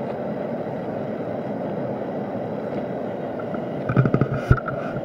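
Steady rushing noise, with a few knocks about four seconds in as a knife cuts through cooked pork down onto a plastic cutting board.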